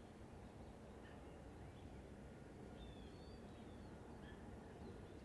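Near silence: faint outdoor ambience with a low steady rumble and a few faint, high bird chirps.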